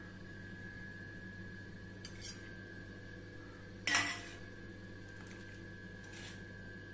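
A metal utensil clinks against a steel cooking pot: one sharp, ringing clink about four seconds in, and fainter ones a little after two seconds and near six seconds. A steady hum runs underneath.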